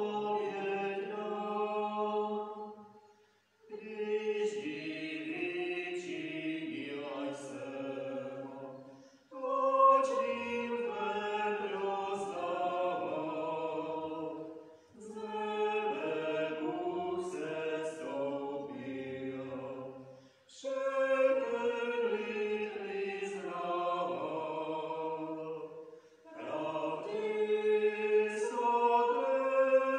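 Church hymn singing: a sung melody in phrases of about five to six seconds, with short breaks for breath between them.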